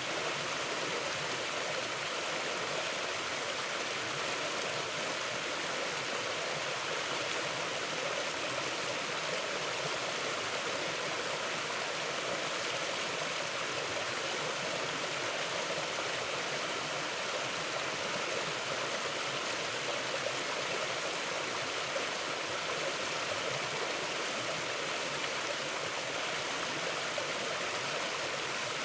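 Forest creek flowing over stones, a steady rushing and burbling of water.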